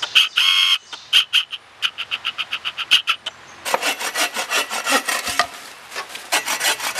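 Hand saw cutting through a thin wooden pole, with quick back-and-forth strokes at about five a second.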